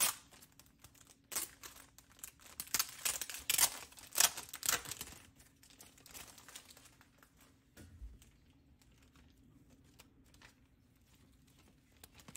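Clear plastic binder sleeve pages crinkling as they are handled, in a busy run of rustles for the first five seconds or so, then only faint occasional rustles.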